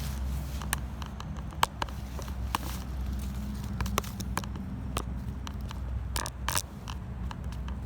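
Camera-handling noise while the camera is being set in place: scattered sharp clicks and knocks, about seven of them, over a steady low rumble.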